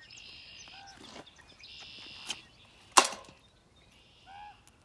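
A single sharp knock about three seconds in, against short buzzy animal calls and small chirps.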